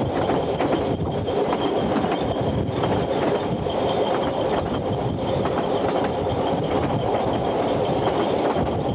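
Ffestiniog Railway narrow-gauge train running at speed: a steady rumble of carriage wheels on the rails, with occasional faint clicks.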